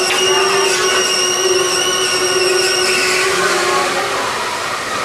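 Ferris wheel's electric tyre drive running with a steady mechanical whine over a rushing noise; the whine fades about three seconds in.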